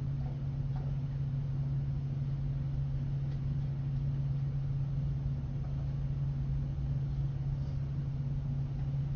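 Steady low machine hum with no change in pitch or level and no crackle of a welding arc.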